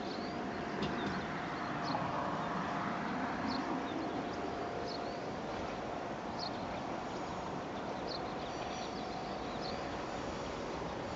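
A small bird chirping, short high calls about every second and a half, over a steady outdoor background hum with a faint steady tone in the first half.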